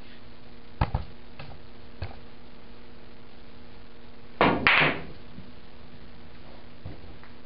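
A pool shot: the cue strikes the cue ball and billiard balls clack together in a quick burst of sharp impacts about four and a half seconds in. A few lighter clicks come about a second in.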